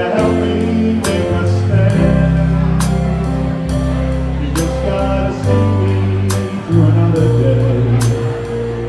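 Live big band playing a slow song: held horn chords over bass, guitar and drum kit, with a sharp drum or cymbal hit about once a second.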